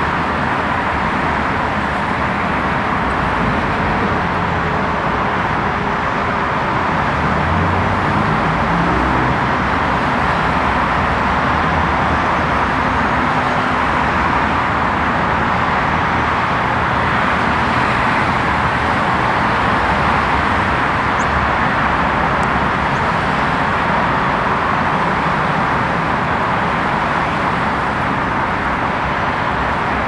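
Steady urban road traffic noise, an even, unbroken rush of passing vehicles.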